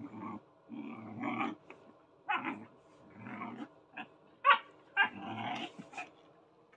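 Puppies growling and yipping in play: a string of short growls, with two sharp, loud yips about four and a half and five seconds in.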